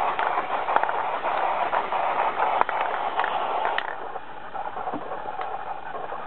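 Aerosol can of white spray paint hissing in a steady spray, stopping about four seconds in.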